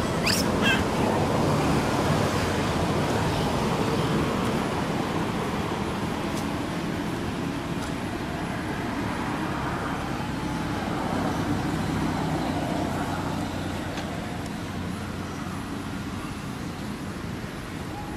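Steady hum of road traffic: an even, continuous rumble and hiss, with a brief high chirp about half a second in.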